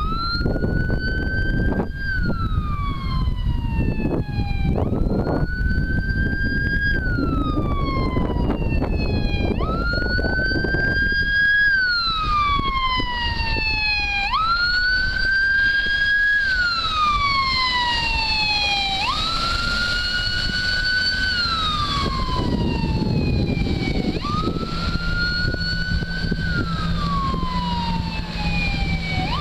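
Fire boat's siren wailing: each cycle sweeps up quickly, holds briefly, then falls slowly, repeating about every five seconds. Wind buffets the microphone underneath.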